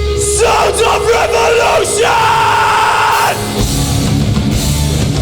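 Hardcore punk band's live intro through a loud PA: sustained guitar and bass notes, with a voice yelling over them for about three seconds.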